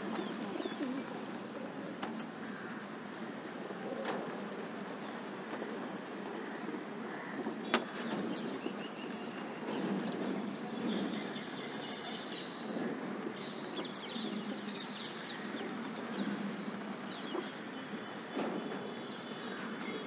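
Rock pigeons cooing repeatedly as they feed, with wings flapping as one flies in near the start and a few sharp taps.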